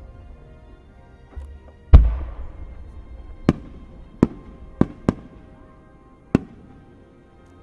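Fireworks bursting: one loud deep boom about two seconds in with a rumbling tail, then five sharp cracks over the next few seconds. Faint music plays underneath.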